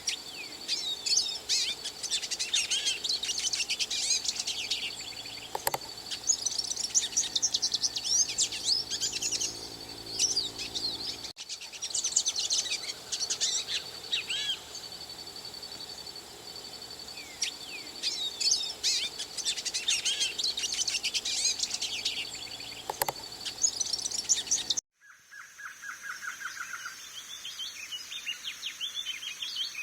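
Songbird singing in fast, complex, high-pitched phrases that repeat in bursts of a few seconds. About 25 seconds in it switches abruptly to a quieter recording of thin chirps over a steady high whistle-like tone.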